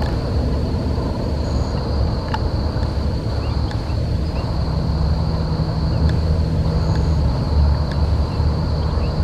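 Wind buffeting the microphone in a loud, uneven rumble, over a steady high-pitched insect drone.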